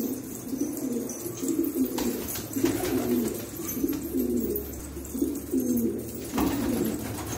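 A loft full of domestic pigeons cooing, several birds' low coos overlapping one after another.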